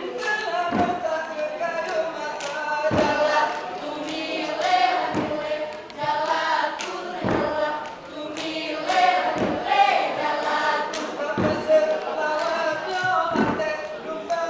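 A group of dancers singing an Acehnese chant in unison without instruments, with body-percussion thumps and slaps about every two seconds in time with the song.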